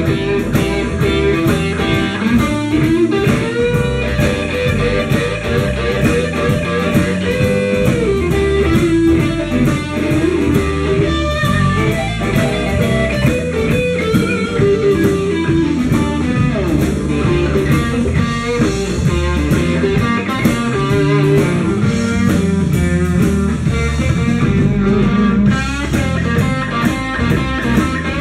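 Live blues band playing an instrumental passage: an electric guitar lead with notes that glide up and down over a steady beat.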